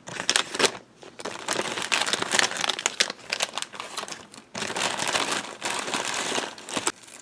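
Hands rummaging through a bag of parts: continuous rustling and crinkling, broken by brief pauses about a second in and again about four and a half seconds in.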